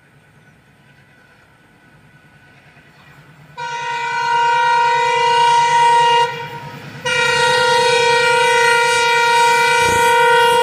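An Alco diesel locomotive draws nearer with a low engine throb, then sounds its horn in two long blasts. The first lasts about two and a half seconds, and after a brief pause the second comes a little under a second later and holds on.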